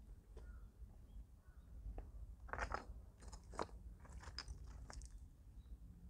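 Footsteps crunching on a forest path: a few quiet steps, with the loudest crunches in the middle.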